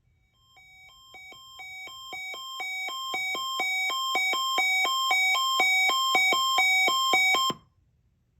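Sangean CL-100 weather radio sounding its alert alarm for the weekly test: a beeping that alternates between two tones about three times a second, growing steadily louder for about seven seconds, then cutting off suddenly.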